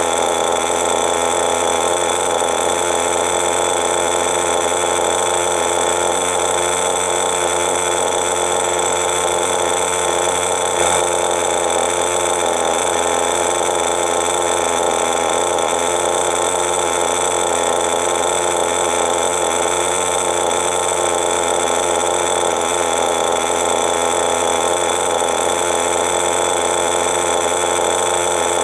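Veco .21 two-stroke nitro engine of an RC buggy running steadily at an even speed, without revving up or down.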